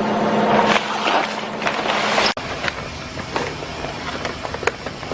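Granola packing machine running: a steady mechanical noise with scattered sharp clicks. The sound breaks off abruptly about two and a half seconds in and resumes a little quieter, with more clicks.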